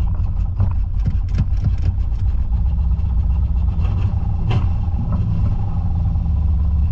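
Holden VN Calais's engine running rough under way, a steady low rumble broken by irregular pops, mostly in the first couple of seconds. It is misfiring hard, which the owner puts down to running so rich that it keeps fouling the plugs.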